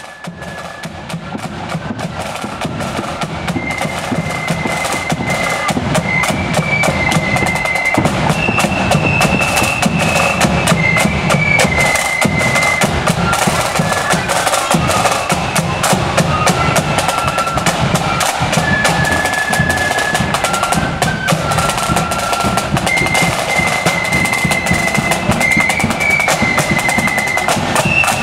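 Marching flute band playing a tune: a high melody line of held, stepping notes over snare drums beating rapid rolls and a bass drum. The band grows louder over the first several seconds as it approaches, then stays loud.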